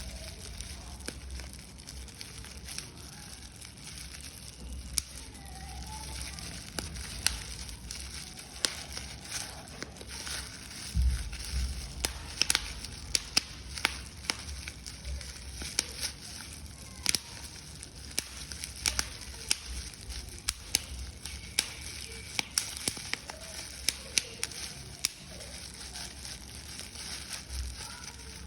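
Paper being crumpled and crushed by hand: a steady crinkling with irregular sharp crackles, and a few dull low thumps of handling.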